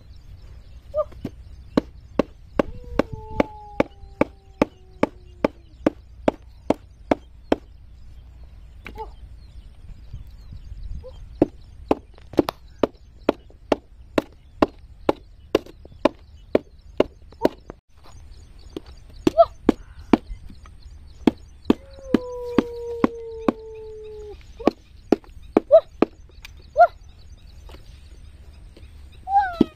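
Sharp wooden knocks of a rock striking wooden sticks, about two a second in runs with short pauses. A rooster crows twice in the background, each crow a long falling call.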